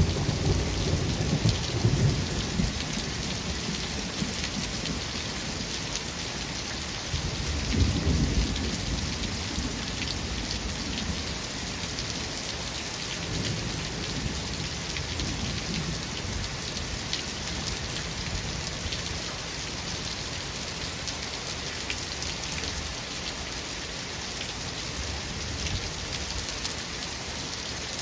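Steady heavy rain with thunder. Low rolls of thunder come at the start and again about eight seconds in, then die away, leaving the rain.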